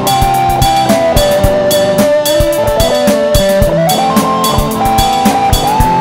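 Instrumental home-made music: a steady drum-kit beat with kick and snare under a lead melody that steps between long held notes.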